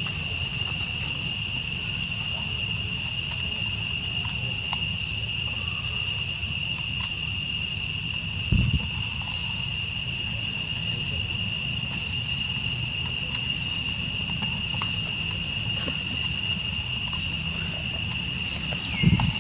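Steady chorus of forest insects: two unbroken high-pitched tones that hold without change. A low, dull thump comes twice, once about halfway through and once near the end.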